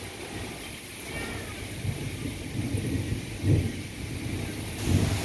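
Severe thunderstorm: steady heavy rain and wind, with deep rumbling surges that build from about two seconds in, the loudest near the middle and again near the end.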